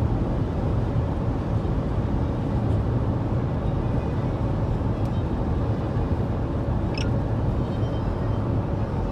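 Steady road and engine noise heard inside a moving car's cabin, a low even rumble. A brief faint high squeak comes about seven seconds in.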